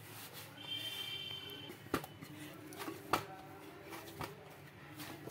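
Hand kneading rice-flour and coconut poori dough in a stainless steel bowl, with about four sharp knocks against the bowl.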